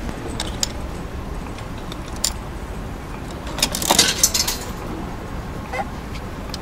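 Coins jingling and small metal clicks as coins are fed into a pressed-coin souvenir machine, with a brief burst of jingling about four seconds in, over a steady street background.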